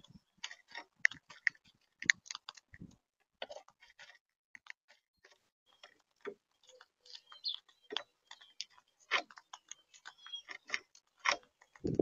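Monk parakeets feeding at a seed tray close to the microphone: irregular clicks and cracks as their beaks crack seeds and pick through the seed mix.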